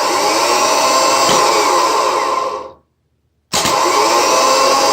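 Old starter motor from a 2.0 TDI PD engine, run free off a battery booster pack. It spins with a loud whine for nearly three seconds, stops, and is switched on again a moment later. Its drive-end bushing sparks as it runs, which the owner presumes is seized.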